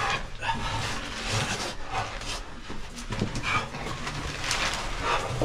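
Someone crawling through a tight stone passage, breathing hard in short noisy breaths, with scuffing of clothes and gear against the rock.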